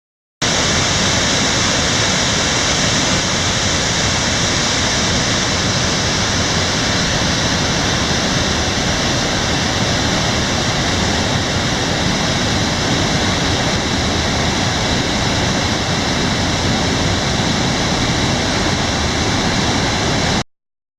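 Heavy rain falling steadily: a loud, constant rushing hiss with a faint steady high tone running through it. It starts and cuts off abruptly.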